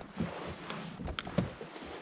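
Handling noise in a kayak: a few sharp knocks and thumps against the hull and gear, three of them standing out, over light rustling.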